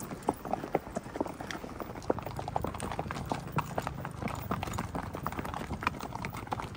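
Hoofbeats of several Marwari horses walking on a dirt track: a steady, uneven patter of many overlapping hoof strikes.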